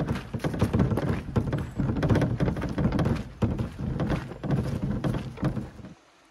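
Footsteps crunching on a dry-leaf-covered dirt road, with gear rustling, as someone walks under a heavy load; the sound cuts off abruptly near the end.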